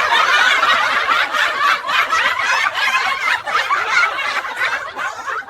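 Several people laughing hard together, a continuous mix of overlapping chuckles and giggles.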